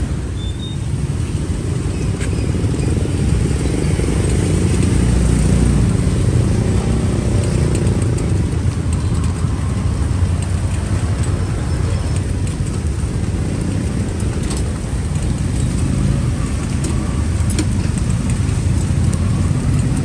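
Street traffic noise: a steady, loud low rumble of passing engines, with a few faint clicks and clatters over it.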